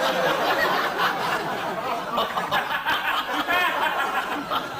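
Studio audience laughing, a steady crowd laugh.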